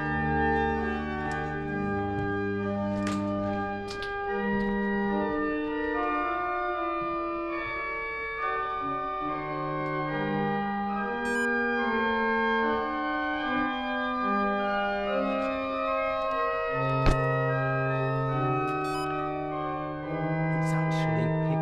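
Church pipe organ playing slow, held chords that change every second or two, with one sharp knock about three-quarters of the way through.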